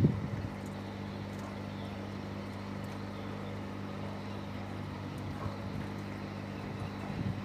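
Boat engine running at a steady idle: an even, low hum that holds unchanged, with a short knock right at the start.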